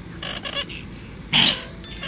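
Slaty-breasted rail calling: a quick run of short, harsh notes, then one louder, harsh call about one and a half seconds in.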